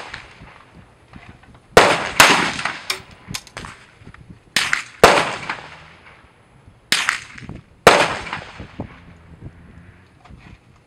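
Rifle shots on a firing range: about six loud, sharp cracks, coming roughly in pairs half a second apart around two, five and seven to eight seconds in, each trailing off, with a few fainter shots between.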